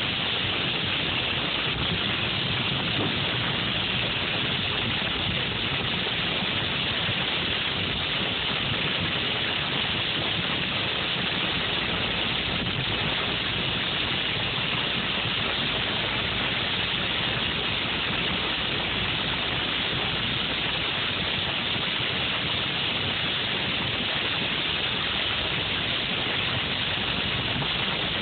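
Heavy rain pelting a car's roof and windshield, heard from inside the cabin, mixed with wet tyre and road noise from driving on a highway; a loud, steady hiss that never lets up.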